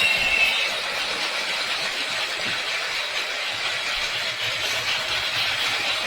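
Battery-powered toy electric steam train running after being switched on: a steady mechanical whirring hiss from its motor and smoke unit, quite noisy. A high beep-like tone from its sound effects stops within the first second.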